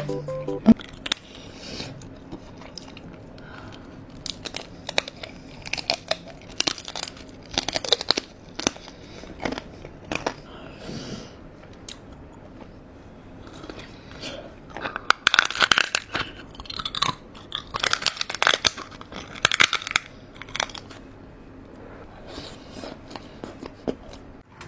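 Close-miked mukbang eating of seafood: wet chewing and crunching in bursts, with sharp crackly bites and smacking that come in clusters and fall quieter in between.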